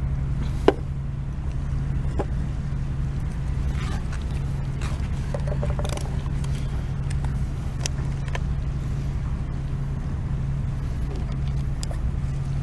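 Wood campfire crackling with scattered pops, one sharper pop about a second in, over a steady low engine-like hum.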